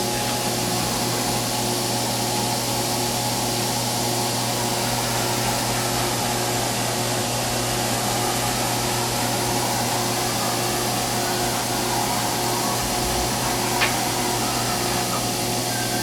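Fadal VMC 4525HT vertical machining center with its X axis being jogged: the axis drive and ball screw run with a steady hum and whine over the machine's constant running noise. A single short click comes near the end.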